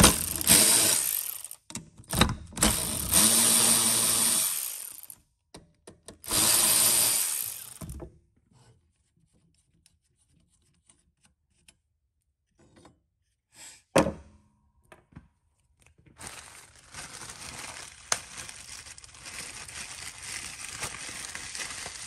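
Handheld power tool running in short bursts, a few seconds each, the longest with a steady whine, followed by a pause with a single sharp click, then a quieter steady rustling noise.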